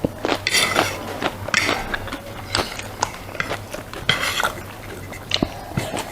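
Cutlery clinking and scraping against a plate during a meal, with short bursts of chewing noise in between.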